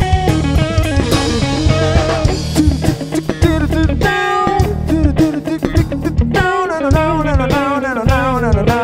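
A rock trio playing live: an electric guitar on a Fender Stratocaster plays a lead line with bent, sliding notes over a drum kit and electric bass.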